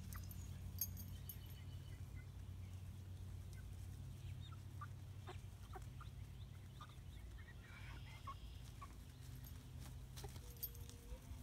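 A small flock of young chickens clucking and peeping softly, short scattered calls over a low steady hum.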